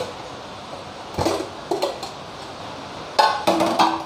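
Metal clinks and knocks as a pressure cooker's lid is taken off and a utensil strikes the cooker pot. There are a few separate knocks, ending in a quick cluster with a short metallic ring near the end.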